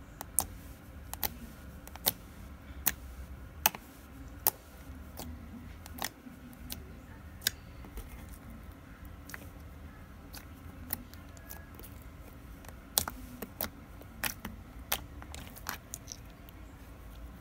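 Clear slime squished and poked with the fingertips, giving irregular sharp clicks and pops, roughly one or two a second.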